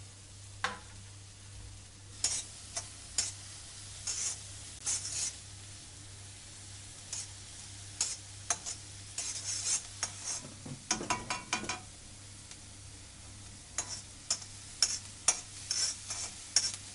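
Diced carrots and capsicum frying in butter in a karahi, with a metal slotted spoon scraping and tapping against the pan in irregular stirring strokes, in a quick flurry about two-thirds of the way through.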